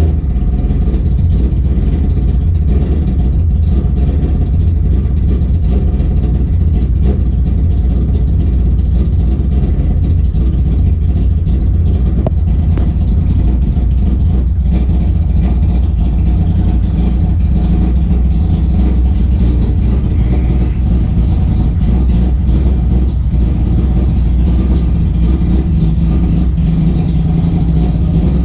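Mazda 20B three-rotor rotary engine idling steadily while it warms up after a start.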